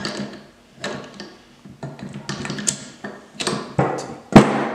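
Irregular metallic clinks and knocks as steel gear shafts and shift forks are handled and fitted into a six-speed manual transmission case. The loudest knock comes near the end.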